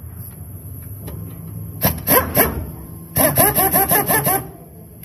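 Impact wrench hammering on a nut of the rear shock assembly to break it loose: a few short bursts about two seconds in, then a run of rapid, even hammering for over a second.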